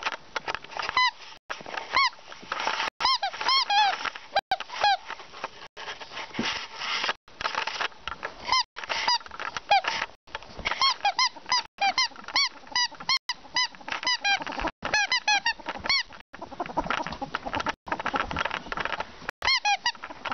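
Ferrets at play on a carpet: many short, high squeaks, each rising then falling in pitch, coming in quick runs of two to four, over steady scuffling.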